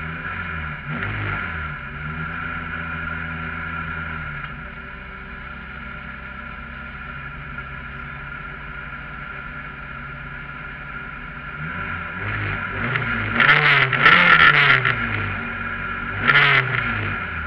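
Citroën Saxo VTS rally car's engine heard from inside the cabin while stationary: a few short blips of the throttle, steady idle, then hard repeated revving near the end with the two loudest surges in the last few seconds.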